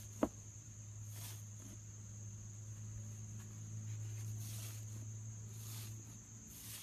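Slime being handled: a sharp pop about a quarter second in and several brief soft squishes, over a steady low hum and a thin high whine.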